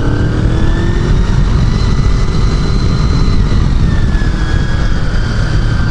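Honda VFR800 V4 engine pulling hard on track, its revs climbing for the first couple of seconds, then dropping a little about four seconds in, under heavy wind rush on the camera microphone.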